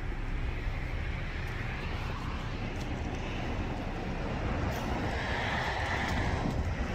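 Steady low outdoor rumble with a faint hiss, with no distinct event standing out.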